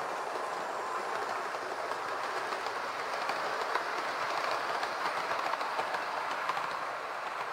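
Hornby OO gauge model trains running on the layout: a steady whirr of small electric motors with light clicking of wheels over the rail joints, a little louder for a few seconds mid-way as a train passes close.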